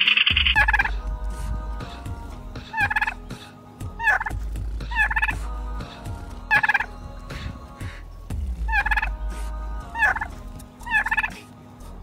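Domestic turkey toms gobbling, about eight rapid rippling gobbles every second or two. A brief loud rasping burst comes right at the start, and a low rumble runs underneath in stretches.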